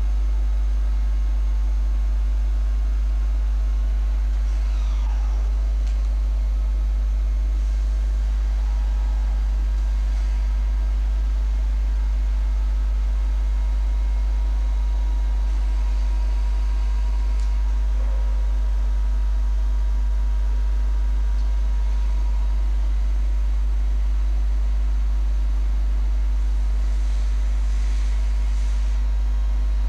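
A CNC tool grinding machine running, giving a steady low hum with a stack of higher tones above it. A few faint, brief higher-pitched sounds come and go over it.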